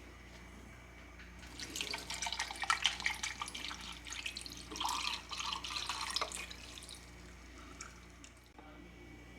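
Water from a tap splashing into a sink for about five and a half seconds, starting about a second and a half in, then stopping.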